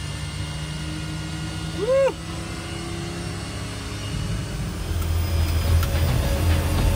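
Float plane's propeller engine running, heard from inside the cabin as a steady low drone that grows louder about five seconds in as the engine powers up on the water. A passenger whoops once about two seconds in.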